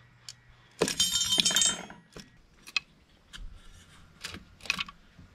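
Steel cam timing chain of a Honda ATC 200S engine rattling and clinking as it is handled. A loud jangling burst comes about a second in, followed by a few sharp, lighter clicks.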